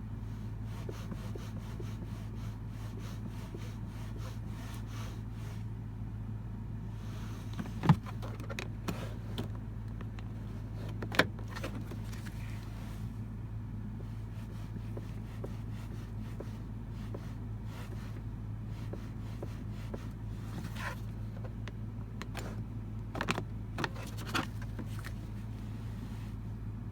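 Toyota RAV4 seatbelt being worked at the B-pillar: the webbing rubs as it moves, with scattered low knocks from the slide rail inside the B-pillar, the rattle behind the pillar noise. Two sharp knocks stand out, about eight and eleven seconds in, and a few more come close together a few seconds before the end. A steady low hum lies underneath.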